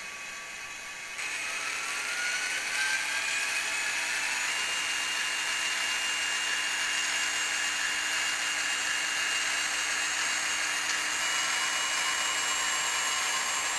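Model Atlas SD35 locomotive pulling away under power. Its Digitrax SDH164D sound decoder plays an SD40-2 diesel sound through a small speaker, with a whine that rises for about three seconds from a second in and then holds steady, mixed with the hum of the model's motor and gears.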